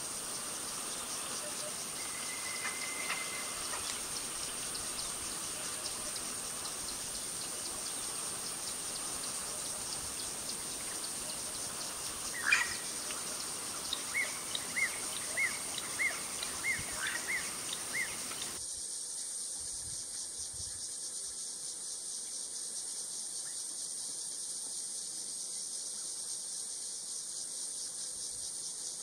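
Steady high-pitched chorus of insects in the bush, with birds calling over it: a brief whistle a few seconds in, a sharp call about halfway, then a run of about eight short repeated notes, two or three a second. A little past halfway the background drops abruptly, leaving the insect chorus thinner.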